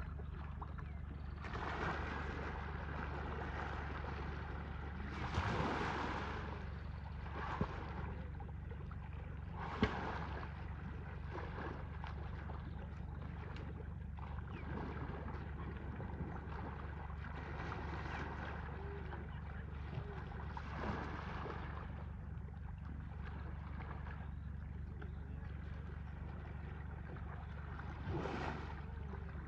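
Pond water splashing and sloshing as Asian elephants bathe and roll in it, coming in repeated surges with a few sharp slaps, over a steady low rumble.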